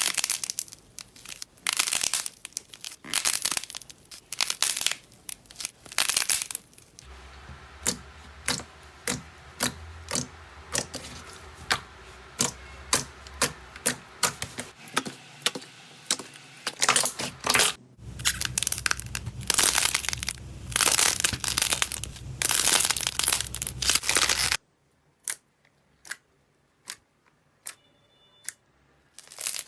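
Slime being squeezed and pressed by hand: dense sticky pops and crackles, with small air pockets bursting. The sound changes character several times. The last few seconds are quieter, with only sparse clicks.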